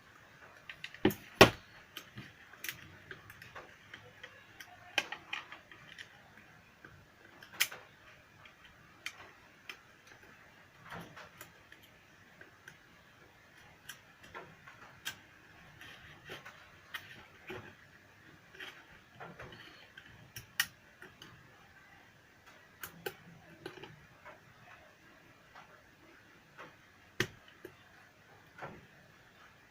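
Irregular sharp clicks and taps of hand tools and small parts being handled during bench repair work, with the loudest pair of clicks about a second in.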